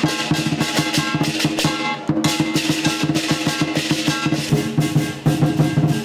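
Lion dance percussion: a big drum with cymbals and gong beating a fast, dense rhythm, the cymbals and gong ringing under the strikes.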